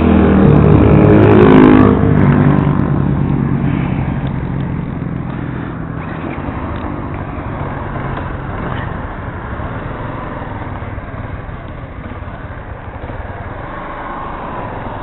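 Yamaha Crosser 150 single-cylinder motorcycle engine pulling away and accelerating, its note rising and loudest in the first two seconds, then settling into a steady cruise with wind and road noise rushing over the microphone.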